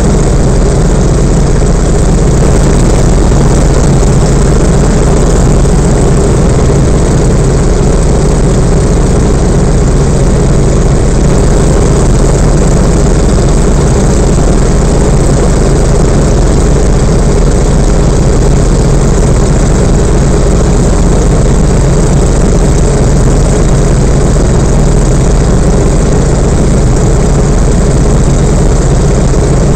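Yak-52's nine-cylinder M-14P radial engine and propeller running steadily at a constant power setting in flight, heard loud from inside the closed cockpit.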